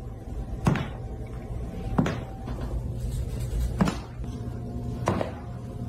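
Four sharp knocks, a second or more apart, over a low steady hum.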